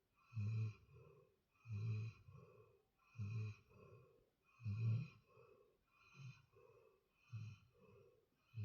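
Snoring in sleep: a steady rhythm of breaths, a louder snore about every second and a half, each followed by a softer breath.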